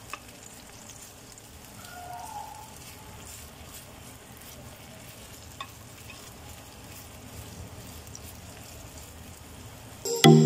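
Beef longganisa sizzling as it fries in its own rendered fat in a frying pan, with a few faint clicks of a utensil turning the sausages. Loud music comes in right at the end.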